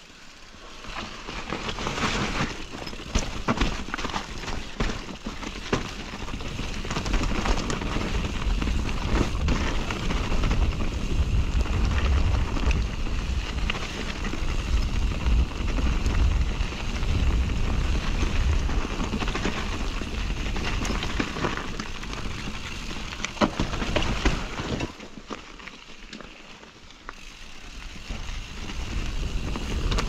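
Nukeproof MEGA enduro mountain bike riding down a dirt forest singletrack: tyres rolling over dirt and roots, with the bike rattling and clattering over the bumps and a low wind rumble on the camera's microphone. It eases off briefly near the end, then builds again.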